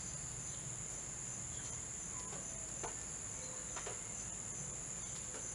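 A steady high-pitched drone, insect-like, with a few faint small clicks of fingers picking at the seal on a plastic squeeze tube.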